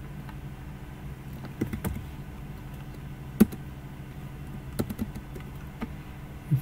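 Computer keyboard keys pressed one at a time, about seven separate clicks spread out, the loudest about three and a half seconds in, over a steady low hum.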